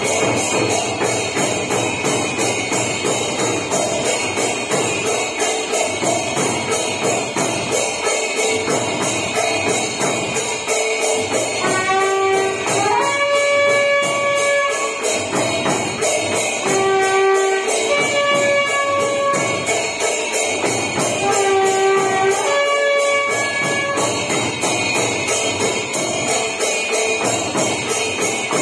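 Temple arati music: a fast, unbroken clanging of metal percussion such as bells and cymbals. Three times in the middle a short tune of held notes stepping in pitch rises above it.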